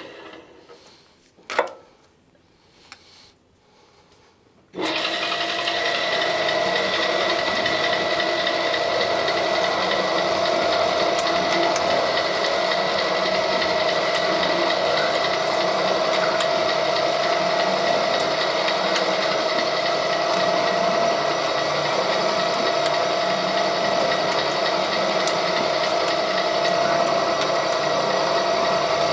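A sharp click and a smaller one, then about five seconds in the gear-driven Wheeler-Rex 6590 pipe threading machine starts up at once and runs steadily with a steady whine while cutting the pipe.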